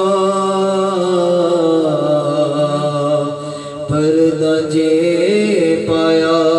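A man singing a naat, an Islamic devotional song, without instruments. He holds long drawn-out notes with slow bends, with a brief dip about halfway through before the next line.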